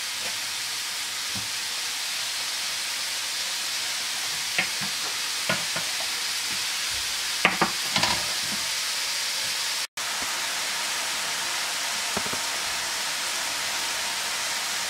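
Beef köfte patties sizzling steadily on a preheated electric grill plate, frying in their own fat with no oil added. A few short crackles stand out in the middle.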